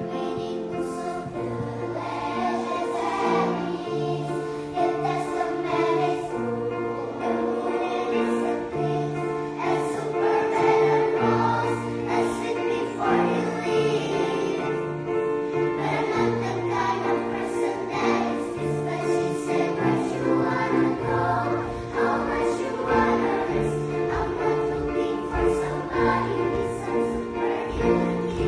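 A mixed choir singing in several parts, holding sustained chords that change about every second or two.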